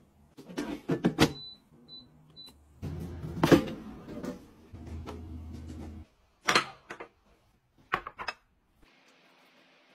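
Plastic knocks and clatters from handling an air fryer's basket, with three short high electronic beeps a second or two in. A low hum runs for a few seconds in the middle.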